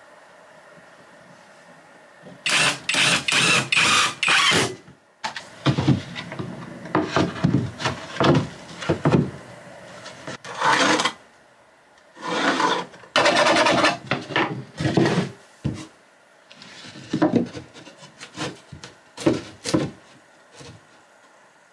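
Oriented strand board floor panels scraping and rubbing against each other and the floor as they are slid and pushed into place, in several bursts of scraping with short knocks between them.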